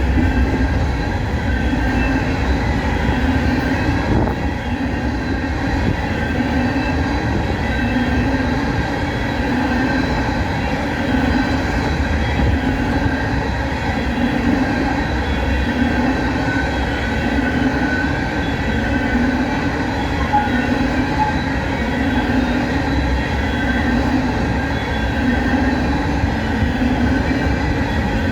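Empty coal cars of a freight train rolling past on the rails: a steady rumble with a low beat repeating every second or two as the wheels pass, and a faint, thin wheel squeal above it.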